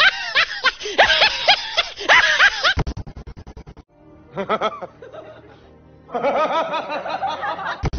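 Laughter from edited meme clips: a high, wavering laugh that rises and falls for the first three seconds, then a quick run of rapid clicks, and near the end another stretch of laughing, with music in the mix.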